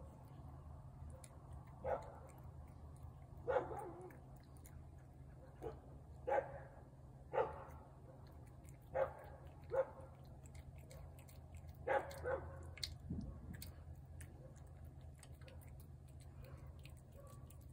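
A dog barking, about nine short barks, several in quick pairs, stopping about 13 seconds in.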